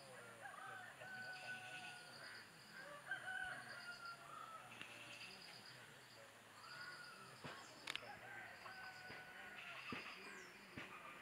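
Faint outdoor ambience: distant birds calling in long drawn-out notes, over a high insect buzz that comes in short repeated pulses, with a couple of sharp clicks about two thirds of the way through.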